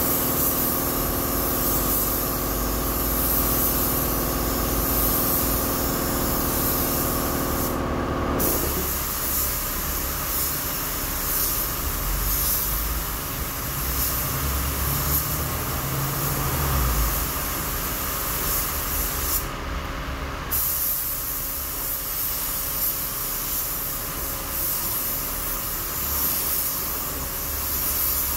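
Gravity-feed air spray gun hissing as paint is sprayed, with short breaks about eight seconds in and about twenty seconds in when the trigger is let go. Under it runs a steady low rumble, and a several-pitched machine hum stops about eight seconds in.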